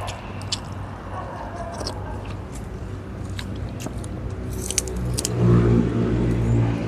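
A steady engine hum that grows much louder about five seconds in, likely a motor vehicle passing. Over it are light, scattered clicks from eating with the hands.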